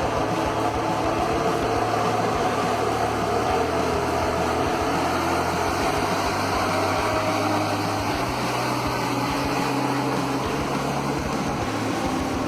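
Heavy log truck's engine running steadily under load, its low hum shifting a little in pitch several times.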